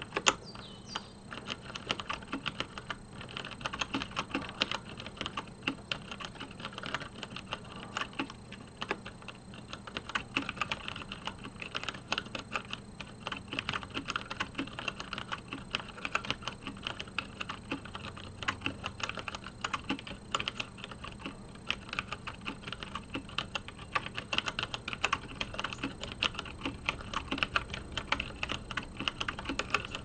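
Continuous touch-typing at about 55 words a minute on a 1996 Compaq G80-11802LPAEU keyboard with well broken-in Cherry MX Brown switches and thin PBT keycaps: a rapid, unbroken stream of keystroke clacks.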